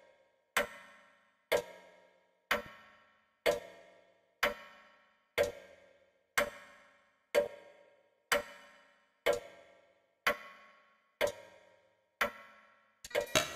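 Water dripping from a tap: single drops land about once a second, each a short ringing plink that dies away quickly. Near the end a few quicker clicks come close together.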